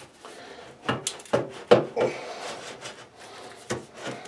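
Two sections of double-wall Type B metal vent pipe being rolled and wiggled together to seat the joint: thin sheet metal knocking and scraping, with a few sharp knocks about a second in and another near the end.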